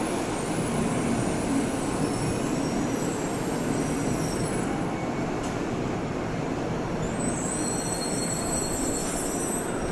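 Eight-car Shinkansen train running slowly into the platform, a steady rush of running and wheel noise. A thin high-pitched squeal from the wheels and brakes comes in about seven seconds in as it slows to stop.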